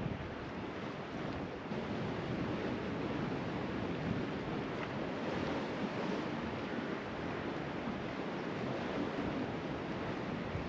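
Steady sea surf washing on the shore, with wind buffeting the microphone.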